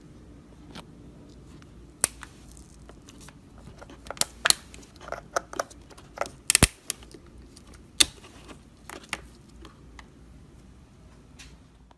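Handling a Ford F-150 door's mirror wiring connector and plastic retaining clip: a string of sharp plastic clicks and snaps, irregular and thickest in the middle, over a faint steady low hum.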